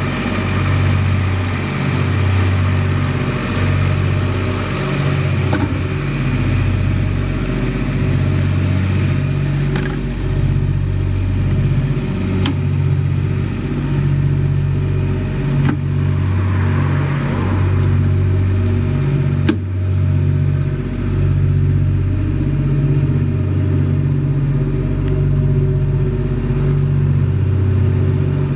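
Ingersoll Rand 7/20 towable diesel air compressors running at a steady speed, with a slow, even pulsing in their low drone. A few sharp knocks come partway through as the canopy lids are shut, and after that the sound is duller.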